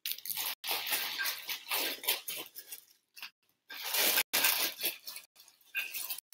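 Plastic packaging crinkling and rustling in irregular bursts with short pauses as a wax warmer is unwrapped by hand.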